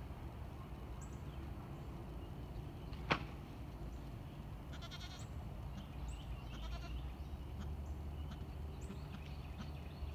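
Quiet outdoor ambience with a steady low rumble, one sharp click about three seconds in, and a few faint high chirps.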